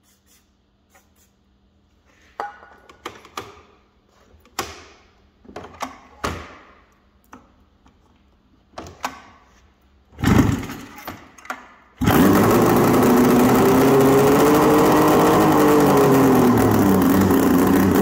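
Yamaha SRX 700 three-cylinder two-stroke snowmobile engine being cranked to start: several short start attempts, a loud cough about ten seconds in, then it catches and runs loud. Its pitch rises and then falls back as it is revved, running on a squirt of brake cleaner as starting fluid with its exhaust pipes off.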